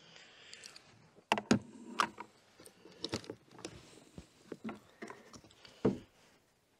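Irregular sharp clicks and knocks of small metal parts as a car battery's hold-down clamp is worked into place with a telescopic magnetic pickup tool, the loudest in the second second and one near the end.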